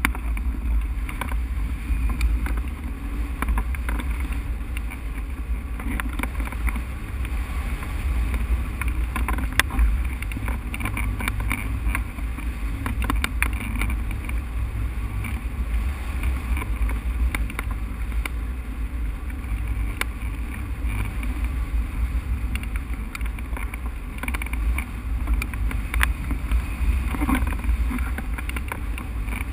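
Wind buffeting the microphone of a camera mounted on a hang glider in flight: a steady, heavy low rumble with scattered sharp ticks.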